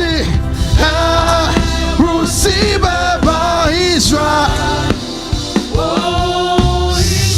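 Live gospel worship music: a lead singer over a band with a heavy bass. The bass drops out for a moment about five seconds in, then returns.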